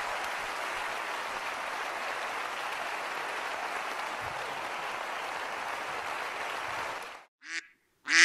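Audience applause, steady and dense, cut off abruptly about seven seconds in; then two short pitched calls follow, the second starting right at the end.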